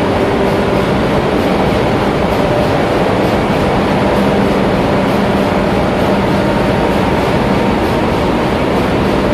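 Container ship engine room at sea in normal operation: loud, steady machinery noise from the running plant. A few steady hums sit in the noise, and a low hum grows stronger about four seconds in.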